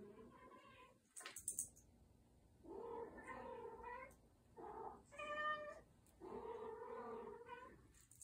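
A domestic cat meowing in a string of about five long, drawn-out calls, the fourth higher and clearer than the rest. There is a short burst of rustling about a second in.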